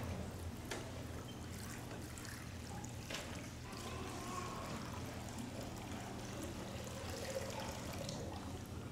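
Water poured from a ewer into the shell-shaped basin of a baptismal font, a steady trickling stream splashing into the water already in the bowl.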